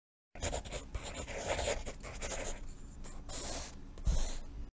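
Scratchy pen strokes, like a pen or stylus rubbing across a drawing surface, in short uneven strokes with small clicks. There is a low bump about four seconds in, and the sound cuts off suddenly at the end.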